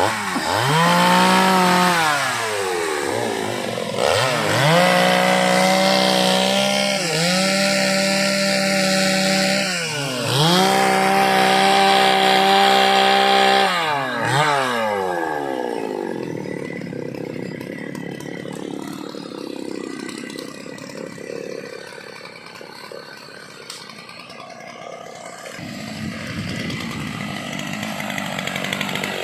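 Two-stroke chainsaw revving up to a high, steady full-throttle pitch, dipping briefly and climbing back several times. About fifteen seconds in it winds down to a lower, rougher running sound.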